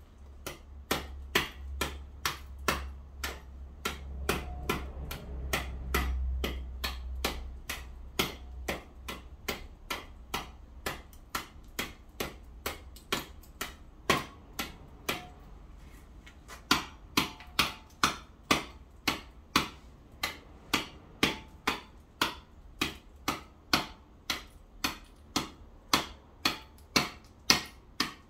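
A small hand tool striking and chipping packed ice and snow on paving, sharp knocks in a steady rhythm of about two a second.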